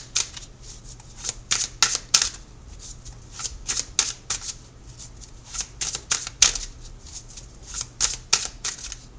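A tarot deck being shuffled by hand: a run of quick, irregular papery swishes and slaps of the cards.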